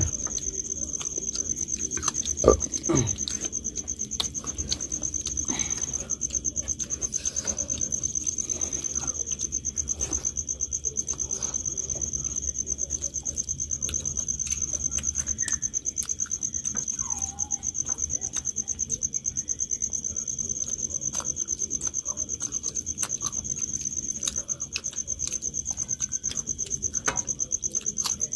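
Crickets trilling in one steady, high, fast-pulsing note, with small clicks from hands eating off steel plates and two sharper knocks about two and a half seconds in.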